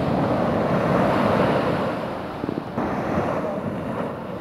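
Sea surf breaking and washing up over a sandy beach, with wind buffeting the microphone. One wash of foam eases off about two seconds in and the next swells in just under a second later.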